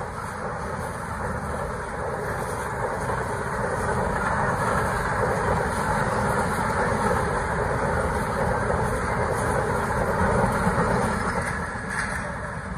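Passenger coaches of the Khyber Mail express rolling past at speed close by, a steady noise of wheels on rails. It grows louder to a peak, then drops off near the end as the last coach goes by.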